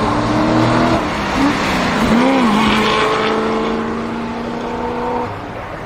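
Prato Orage's 8.1-litre Chevrolet V8 revving hard. Its pitch swoops up and back down about two seconds in, then holds a steady note before easing off near the end.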